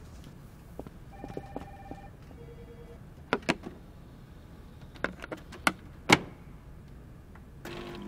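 A small desktop machine gives a couple of short electronic beeps as a paper strip is fed into its slot. Several sharp clicks follow as it is handled.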